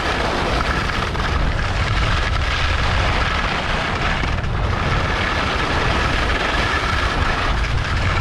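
Wind rushing over the microphone of a skier's body-mounted camera, with skis scraping steadily over hard, icy piste snow during a downhill run: a loud, unbroken rush with heavy low rumble.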